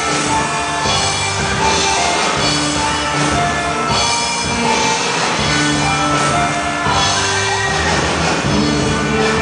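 A band playing a rock song on drum kit and guitar, with a melody moving from note to note.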